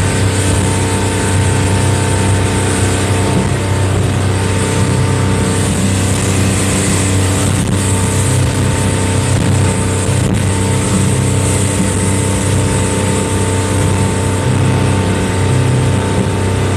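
Motorboat engine running steadily at cruising speed, heard from inside the cabin, with a steady rushing hiss over its drone.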